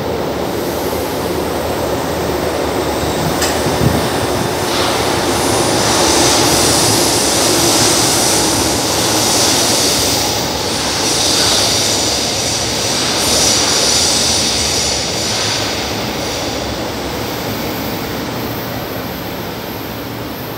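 São Paulo Metro Line 2 train pulling out of the platform and running off into the tunnel, a steady rumble of motors and wheels with a high hiss and whine strongest in the middle, easing off near the end. A sharp click comes about four seconds in.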